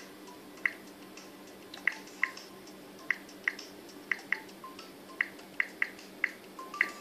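Smartphone keyboard clicks as thumbs type a search on the screen: about a dozen short, sharp ticks at an uneven typing pace, roughly two a second.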